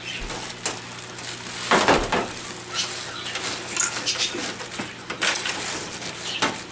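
Scattered clicks, taps and light metallic clatter from hands handling a TV main board and its cable connectors on the sheet-metal chassis, the loudest cluster about two seconds in.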